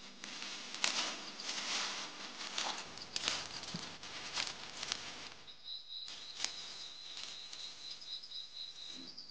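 Dry bean plants rustling and crackling in a series of bursts as they are pulled up and handled by hand. From about halfway, a steady high insect trill takes over, with a few faint rustles under it.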